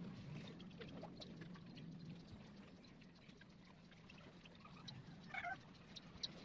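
Faint scratching of a coloured pencil shading on paper, close to near silence. A short animal call sounds about five seconds in.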